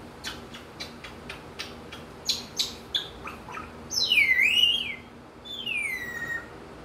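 African grey parrot making a rapid string of sharp clicks, then two loud whistles: the first dips in pitch and rises again, the second slides steadily down.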